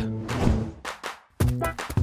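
Cartoon background music. One passage dies away over the first second or so, there is a brief gap, then a new passage of steady chords starts.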